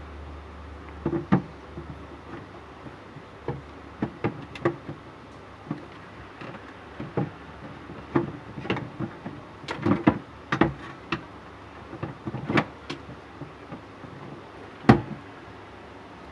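Irregular knocks, taps and clatter from hand installation work, about a couple of hits a second at the busiest, with one sharp knock near the end.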